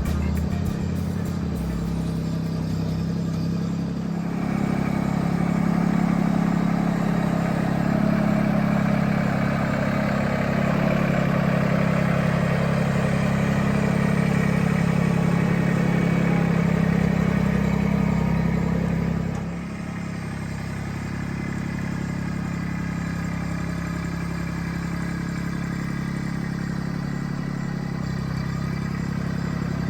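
Tractor engine running steadily. It runs harder and louder from about four seconds in, then eases back about two-thirds of the way through.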